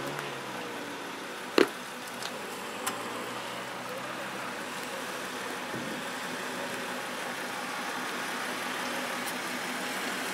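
Off-road vehicle engine running steadily at low speed. A sharp knock comes about a second and a half in, followed by two lighter clicks within the next second or so.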